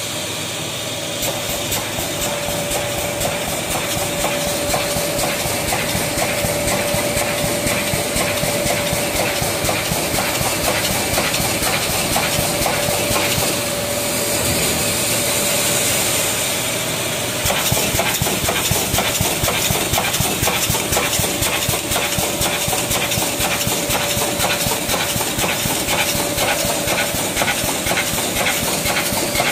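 Rongkuai (RKM) automatic 3–6 mm wire mesh panel welding machine running and welding: a dense run of clicks and crackle from the welding heads over a steady hum and hiss.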